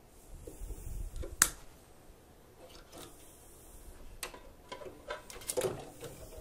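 Scattered light clicks and taps of hands and tools working on the back of a CRT television being scrapped, with one sharp click about a second and a half in and a few smaller ticks later.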